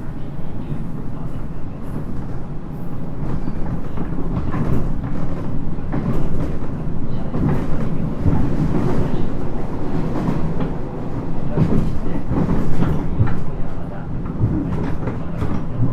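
Interior running sound of a JR East 719 series electric multiple unit under way: a steady rumble of wheels on rail, broken by frequent sharp clacks and knocks from rough, poorly kept track.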